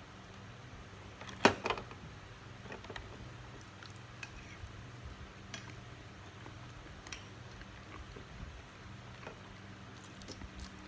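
Metal fork tapping and scraping on a plastic takeaway food tray while eating: one sharp clack about a second and a half in, then scattered lighter clicks, over a steady low hum.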